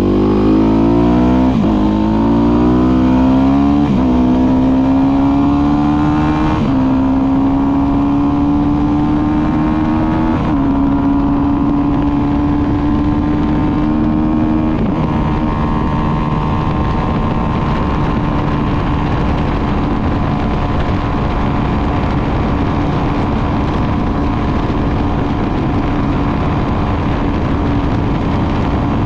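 Motorcycle engine accelerating up through the gears. The pitch climbs and drops back at each of about five shifts over the first fifteen seconds, then holds a steady note at cruising speed.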